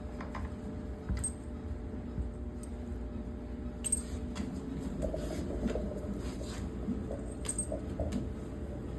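A Siberian husky working a treat-stuffed puzzle ball, making scattered light clicks and knocks over a steady low hum.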